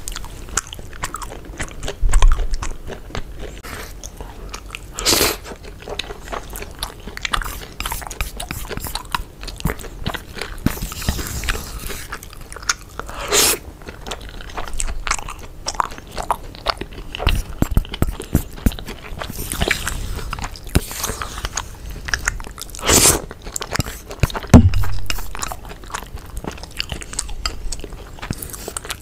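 Close-miked chewing and mouth sounds of someone eating rice mixed with egg, with many short clicks, some likely from wooden chopsticks against the ceramic rice bowl.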